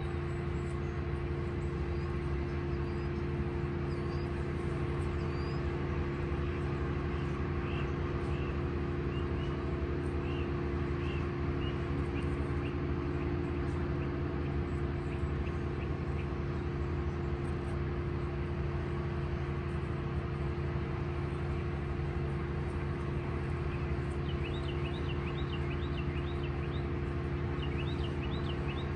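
A steady low engine drone from construction machinery running, with small birds chirping over it in quick high series, in the first half and again near the end.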